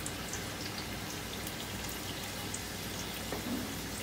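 Sliced onions frying in hot oil in an iron kadhai: a steady sizzle with small scattered crackles, raw onion slices just added over a high flame.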